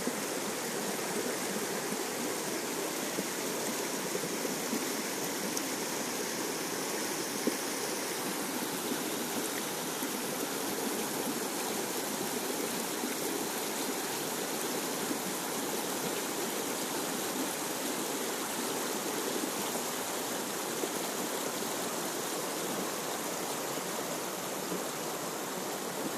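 The Beas River rushing steadily over rocks, a constant full hiss of flowing water without letup.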